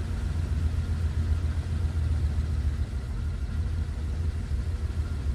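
1935 Ford Model 48's flathead V8 idling steadily just after a cold start, with the choke partly out while it warms toward a smooth idle, heard from inside the cabin.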